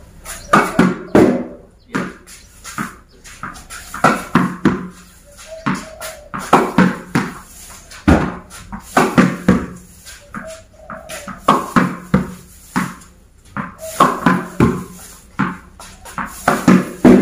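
Tennis racket hitting overhead smashes, each hit followed by the ball bouncing on a tiled floor, in clusters of sharp knocks about every two to three seconds.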